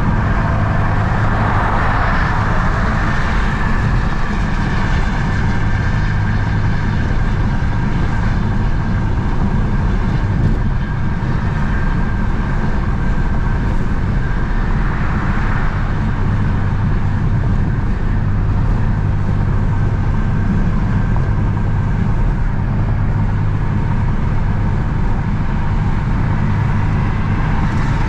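Inside the cabin of an F80 BMW M3 cruising at steady highway speed: the S55 twin-turbo straight-six's exhaust, fitted with a VRSF single mid pipe and the stock rear exhaust, gives a steady low hum under road and tyre noise. There is virtually no exhaust drone.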